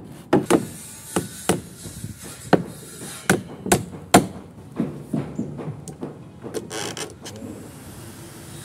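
Hammer driving nails into plywood and timber concrete formwork: a run of sharp, irregularly spaced blows that stop about seven seconds in.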